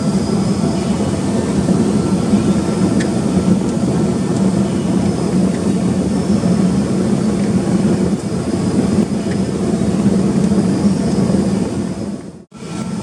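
Heavy farm machinery running steadily at potato harvest: a continuous diesel engine drone with machinery noise over it. It drops out for an instant near the end, then resumes.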